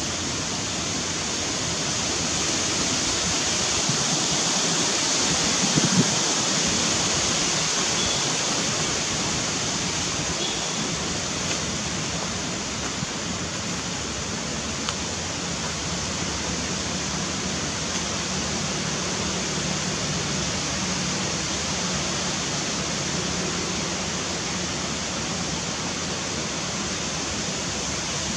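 Steady, even hiss of outdoor background noise, brightest in the high range, with a faint knock about six seconds in.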